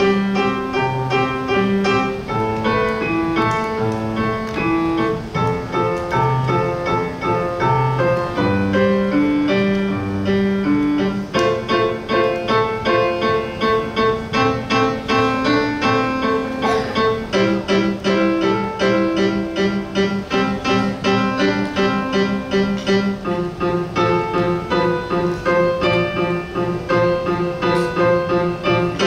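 Piano solo: a melody over a steady, evenly pulsed accompaniment.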